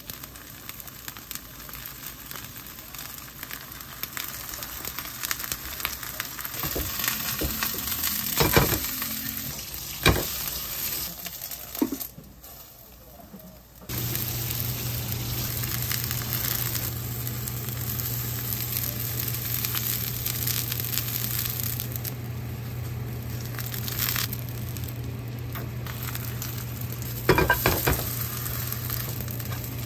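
Green onions and pancake batter sizzling in hot oil in a frying pan while a green-onion pancake (pajeon) fries, with a few sharp clacks of a metal spatula against the pan. A steady low hum runs under the sizzle in the second half.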